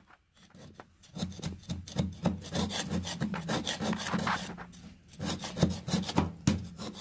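One-inch metal mud knife scraping WD-40-softened tar paper off a hardwood floor in short, rapid strokes. The strokes start about a second in and pause briefly past the middle.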